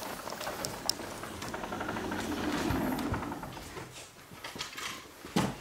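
Footsteps and shuffling of several people moving through a house, with scattered knocks and a sharper thump near the end.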